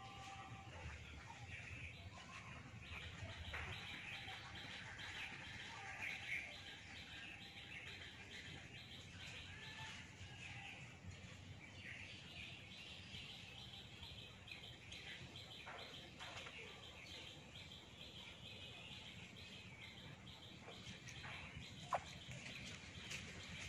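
Faint birds chirping over and over in a steady repeating pattern. One short, sharp plop from the water comes near the end, as the pond surface ripples.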